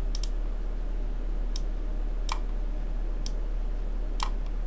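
Computer mouse buttons clicking: about six separate sharp clicks, a quick pair near the start and then single clicks roughly a second apart, over a steady low electrical hum.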